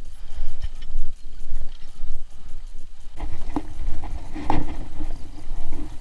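Mountain bike riding over a rough dirt singletrack: a steady low rumble with irregular knocks and rattles as the bike jolts over the ground, the knocking growing stronger about three seconds in.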